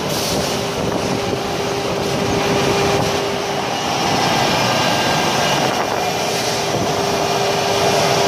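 CNC wood router running: its HSD spindle and dust-extraction blower give a steady rushing noise with a constant hum, getting a little louder about halfway through.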